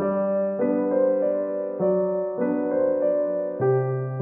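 Background music of sustained chords that change about every half second.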